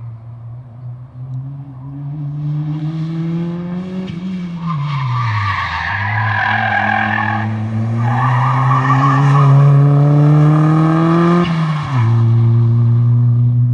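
Mazda 323 rally car at full throttle with its tyres squealing as it slides through corners. The engine note climbs, falls steeply about four seconds in, climbs again for several seconds, then drops suddenly near the end.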